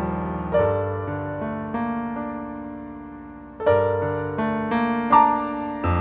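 Slow solo piano music on a digital piano: deep chords struck and left to ring, fading away between strikes, with a new chord about half a second in and again past the middle, and a higher note near the end.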